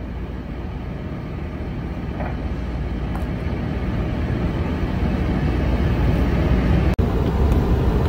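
Steady, low rumbling background noise that slowly grows louder, cut by a brief dropout about seven seconds in.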